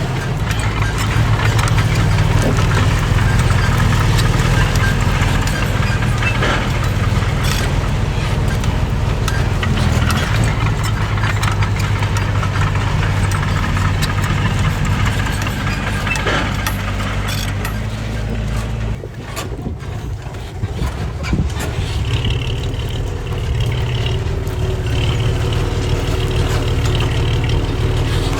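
Heavy diesel construction machinery, a bulldozer or dump truck working stone fill, running steadily with scattered knocks and clanks. The engine sound drops away briefly about two-thirds of the way through, then picks up again.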